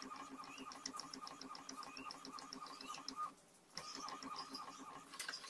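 Epson L130 ink-tank inkjet printer printing a photo: the print-head carriage runs across with a steady whine and rapid even ticking, pauses briefly a little past three seconds in, then starts its next pass.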